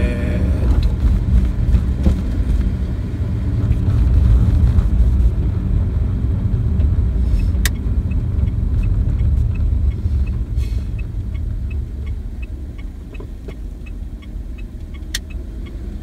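Car engine and road noise heard from inside the cabin: a steady low rumble that grows quieter over the last few seconds. A run of light, even ticks comes in during the second half, with a sharp click about halfway through.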